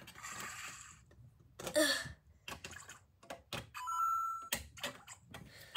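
An interactive Lego Luigi figure playing an electronic sound effect from its built-in speaker: a steady beeping chime lasting under a second, a little past the middle. Sharp clicks of plastic Lego bricks being handled come before and after it.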